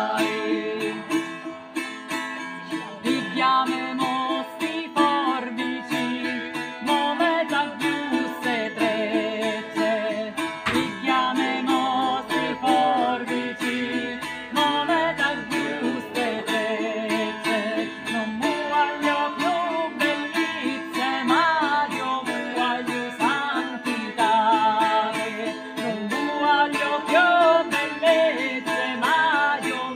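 Acoustic guitar strummed in a steady rhythm, with a woman singing and men's voices joining in.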